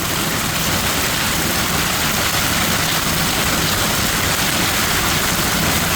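Hail and heavy rain of a hail storm falling steadily, a loud, even noise with no let-up.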